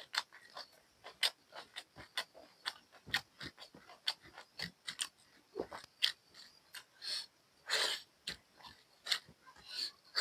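Close-miked eating: a person chewing and lip-smacking through a mouthful of buffalo curry and rice, with irregular wet clicks and smacks, several to a second.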